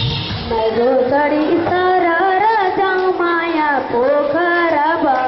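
A boy singing solo and unaccompanied into a microphone, holding long wavering notes. The dance music before it cuts off right at the start.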